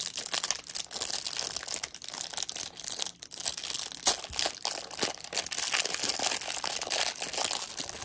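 Clear plastic wrapper crinkling and tearing as it is peeled off a stack of trading cards, with many small crackles running on without a break.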